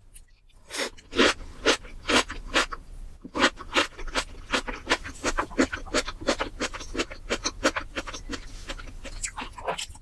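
Close-miked mukbang eating: wet chewing and mouth smacks, several a second in an uneven rhythm.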